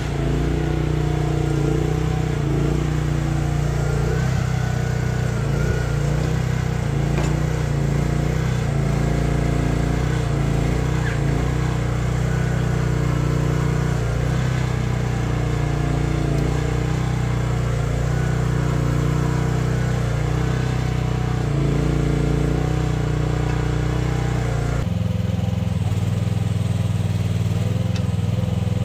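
Small Briggs & Stratton 13.5 hp petrol engine of a 1-ton mini excavator running steadily under load while digging, its pitch wavering as the hydraulics work. The engine sound changes suddenly about 25 seconds in.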